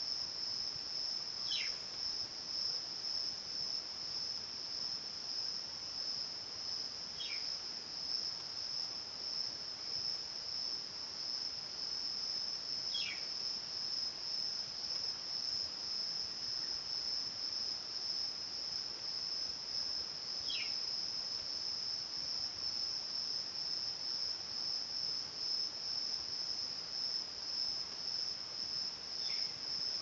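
Steady, high-pitched chorus of insects, unbroken throughout. A short falling whistle sounds five times over it, about every six seconds.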